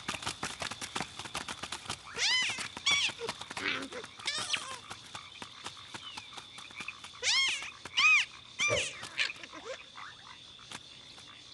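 A bird giving short chirps that rise and fall, about six in two groups, over a run of rapid clicks.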